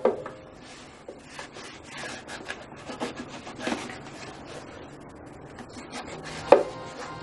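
Small taps, knocks and rubbing as hands handle a wooden violin on a shop counter, with one louder knock about six and a half seconds in.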